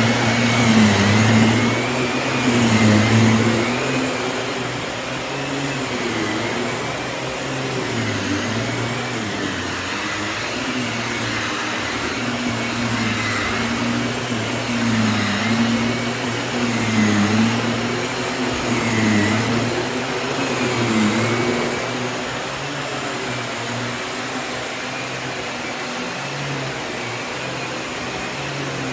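Miele S194 Quickstep stick vacuum with a Power Plus powered head running steadily, a continuous motor hum whose pitch dips and recovers about every two seconds.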